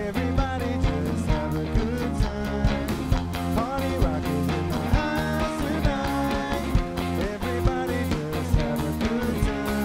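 Live rock band playing: electric bass, electric guitar and drums on a steady beat.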